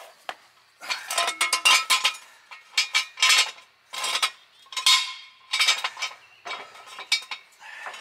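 Steel jack stand clanking and scraping on pavement and metal as it is worked into place under the car. The sound is an irregular run of sharp metallic knocks, each ringing briefly, with short pauses between them.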